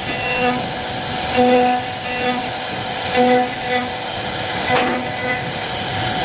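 CNC wood-carving router running, a steady motor whine with a lower tone that keeps starting and stopping as the machine moves, and one sharp click a little before the end.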